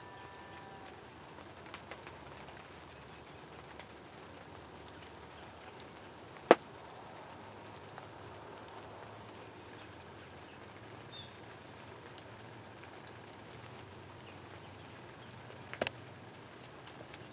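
Quiet field ambience with a faint steady low hum and a few faint high chirps. A single sharp click about six and a half seconds in, and a softer double click near the end.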